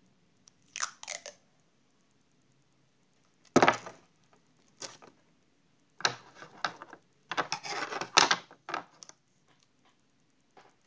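Clear adhesive tape being pulled off its roll in several short rasping rips, the longest about two thirds of the way in, with paper being handled between them.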